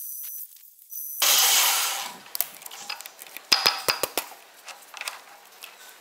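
Metal lathe facing the end of a steel bar: a steady high cutting hiss with small clicks that stops about half a second in. A loud rush of noise follows about a second in, then a quick cluster of sharp metal clanks and knocks at the lathe chuck around three and a half to four seconds in, with light ticks after.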